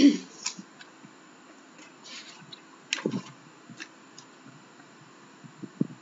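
Scattered light clicks and taps, irregular and a second or so apart, with a brief soft hiss about two seconds in.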